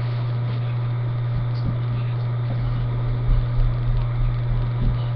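Steady low hum, with irregular dull low thumps from about halfway through.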